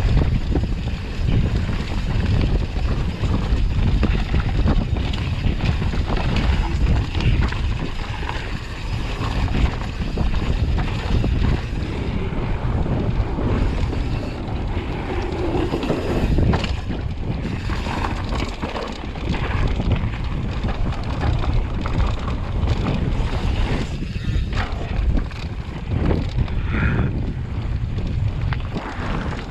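Mountain bike descending a rough dirt trail: a steady rumble from the tyres and frame, with many short knocks and rattles, under heavy wind buffeting on the microphone.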